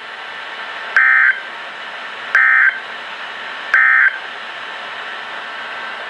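NOAA Weather Radio end-of-message code: three short, buzzy SAME data bursts about a second apart, over steady radio hiss, signalling the end of the alert.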